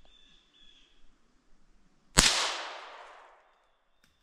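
A single gunshot: one sharp, loud crack about halfway through, with an echo that trails off over about a second. A shorter, quieter crack follows right at the end.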